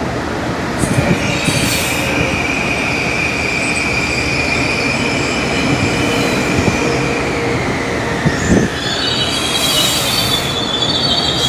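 Metro-North M8 electric multiple-unit train rolling slowly past the platform over a steady rumble of wheels. Its wheels squeal on the rails in one high tone that slides lower about seven seconds in. After a knock, a higher squeal starts near the end.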